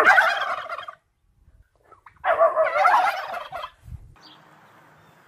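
Domestic tom turkeys gobbling twice, each a loud rattling call about a second long, the second starting a little over two seconds in. After that only faint background remains, with a brief high chirp.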